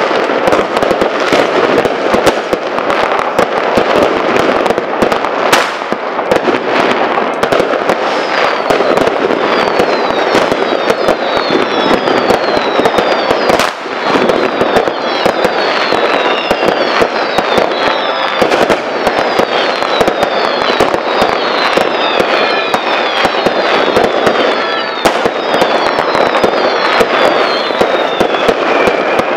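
Dense fireworks: a continuous crackle of firecrackers and bangs, with many short whistles falling in pitch from about ten seconds in.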